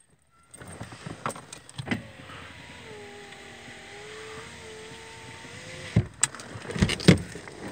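Inside a parked car: a steady hiss with a faint, slightly wavering whine for a few seconds, then several sharp clicks and knocks near the end.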